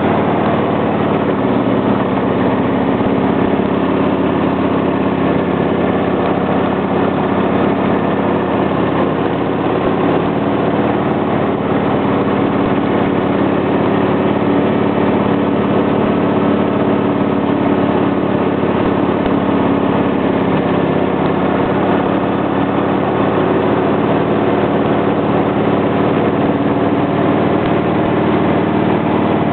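Motorcycle engine running steadily at cruising speed, heard on board the moving bike, its pitch holding nearly even through the curves.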